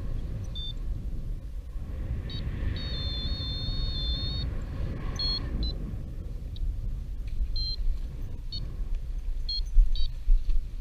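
Strong wind buffeting the microphone with a constant low rumble, and gusts rising and falling. Short high-pitched beeps or chirps recur through it, one held for over a second.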